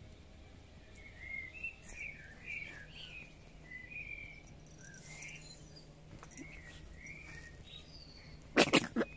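A small songbird chirping and twittering, a string of short rising and falling notes. Near the end, three quick loud sounds close to the microphone drown it out.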